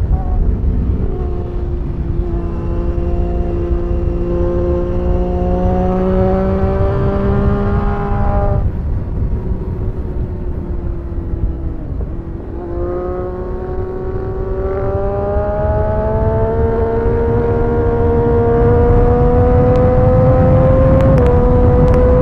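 Sport motorcycle engine pulling hard under throttle, its note rising steadily for several seconds, falling away about eight and a half seconds in as the throttle comes off, then climbing again from about twelve seconds and dipping slightly near the end. Heavy wind and road rush on board the moving bike.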